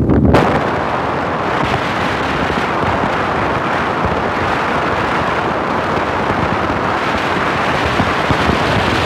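Wind rushing over a phone's microphone held out of a moving car's window, a loud steady rush mixed with the car's road noise.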